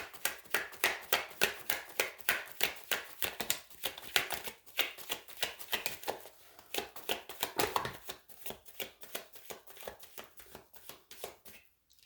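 A tarot deck being shuffled by hand: a quick, steady run of card slaps and flicks, several a second, that tapers off and stops just before the end.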